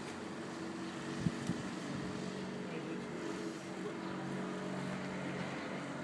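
Mobylette moped's small two-stroke engine running steadily, with two sharp knocks a little over a second in.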